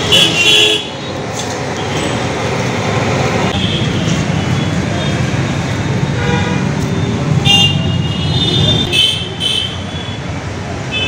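Steady street traffic noise, with short high-pitched toots near the start and again about two-thirds of the way through.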